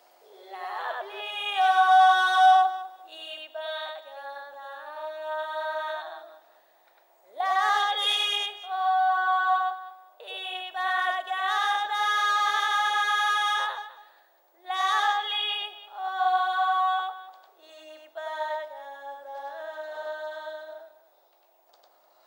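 A woman singing unaccompanied, with long held notes in several phrases and short pauses between them.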